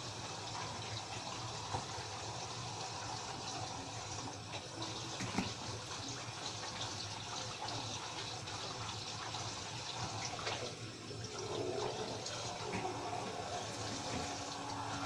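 Tap water running steadily into a bathroom sink as someone washes slime off her hands, with a few faint knocks.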